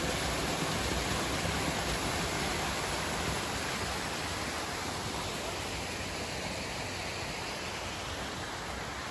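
Small waterfall cascading over rocks: a steady rush of water, growing slightly fainter toward the end.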